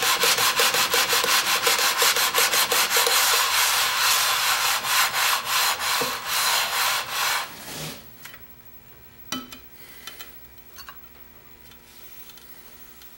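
Cast iron sole of an old Record trying plane scrubbed rapidly back and forth over wet/dry sandpaper wetted with cutting fluid, lapping the sole flat in a steady rhythm of strokes. The strokes die away about eight seconds in, followed by a few light knocks.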